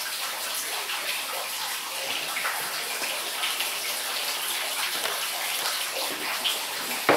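Steady rush of running water, an even hiss that does not change, with a sharp knock at the very end.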